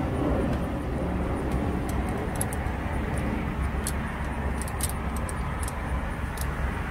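Steady low outdoor rumble, with scattered light clicks of pliers and metal working on a truck battery's cable terminal.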